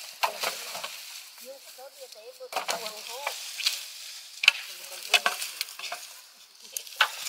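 Dry leaves, twigs and cut branches crackling and crunching underfoot and in hand, in irregular bursts of snaps and rustles.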